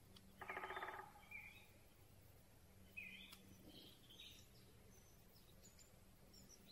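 Great spotted woodpecker drumming: one short, very rapid roll of knocks on wood about half a second in, its spring territorial and courtship signal. A few brief chirping calls from other birds follow over a faint steady hiss.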